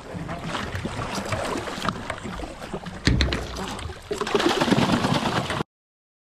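Water splashing and churning against the boat's side as a hooked tuna thrashes at the surface by the landing net, with wind buffeting the microphone. A heavy low thud comes about three seconds in, and the sound cuts off suddenly a little after five seconds.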